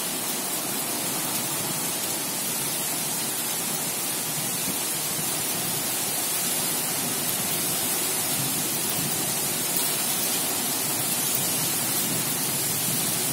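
Heavy thunderstorm rain pouring down steadily, a dense even hiss that grows a little heavier after the middle.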